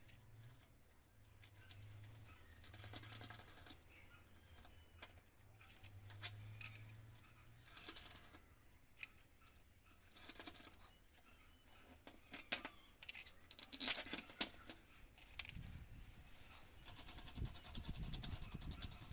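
Small steel parts of a bolted sliding jig being handled and fitted together: nuts, washers and bolts clinking and tapping against the steel angle bracket. A louder cluster of clicks comes about two-thirds through, and near the end a quick run of fine clicks as a nut is spun onto a bolt.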